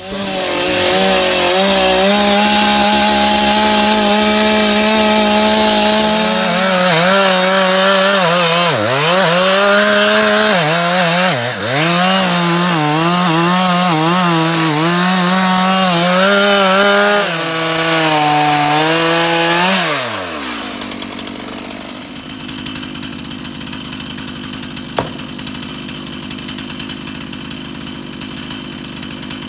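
Chainsaw running at high revs while cutting into a tree trunk, its pitch dipping several times as the chain bogs down in the wood and recovering. About 20 seconds in the engine note falls away and it stops, leaving a quieter steady noise with one sharp click a few seconds later.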